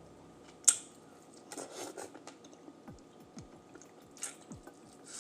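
Close-miked eating sounds: wet smacking and chewing of sauce-covered seafood, with scattered clicks and one sharp, loud click a little under a second in.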